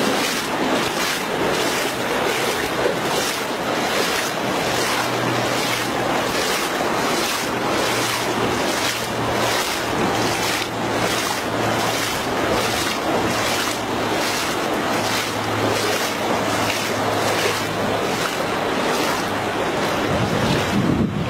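Floodwater rushing and lapping, with wind buffeting the microphone. A hiss pulses about twice a second throughout, and a low steady hum runs under it for most of the time.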